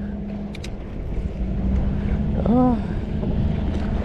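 Steady low drone of a boat engine running, with one short pitched sound, possibly a voice, that rises then falls about two and a half seconds in.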